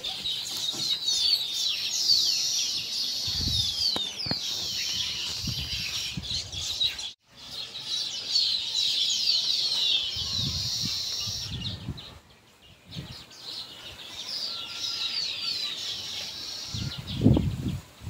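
Small cage birds twittering: a dense run of quick, high, downward-sliding chirps, with a brief break about seven seconds in and a lull around twelve seconds. Muffled low thumps come now and then, the loudest near the end.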